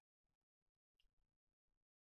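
Near silence, with only faint, broken scraps of sound.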